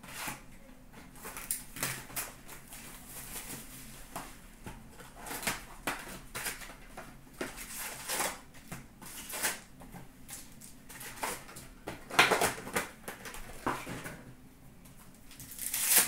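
Trading-card hobby box being opened and its card packs torn open by hand: paper and wrapper rustling and crinkling in irregular bursts, loudest about twelve seconds in and again near the end.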